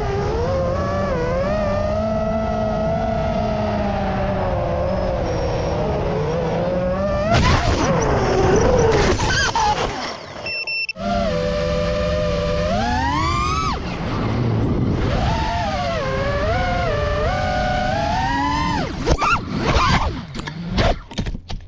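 FPV quadcopter motors whining, the pitch rising and falling with the throttle. About eight seconds in, the quad hits brush with a burst of rustling noise and the sound cuts out. A second FPV quad then flies with the same whine, and a few sharp knocks come near the end.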